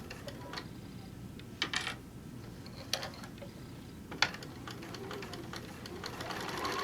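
Sewing machine stitching slowly, with sharp clicks about once a second over a low motor hum, then running more steadily near the end.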